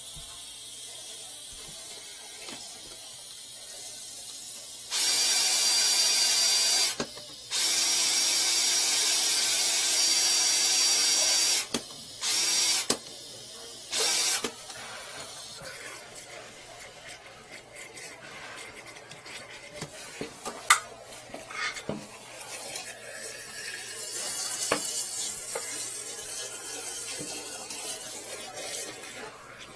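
Power drill driving a flexible-shaft drain cleaner into a clogged sink drain, running in bursts: about two seconds, then about four seconds, then two short spurts. After that, quieter rattling and sharp knocks as the shaft works in the pipe.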